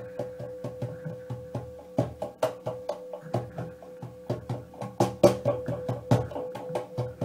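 Live percussion played in a fast, steady rhythm: sharp wood-block-like strikes, about five a second, over low drum thumps, with a few louder accented hits. A steady held tone sounds underneath throughout.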